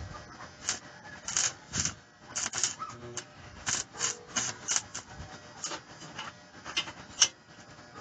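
A hand tool scraping and tapping on a welded steel frame: short, sharp strokes, irregular, about two or three a second.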